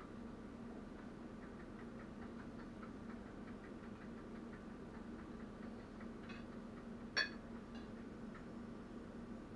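Kitchen food-preparation sounds over a steady low hum: faint, regular light tapping of about four a second, then a few sharper clicks and one louder ringing clink of a utensil against a dish about seven seconds in.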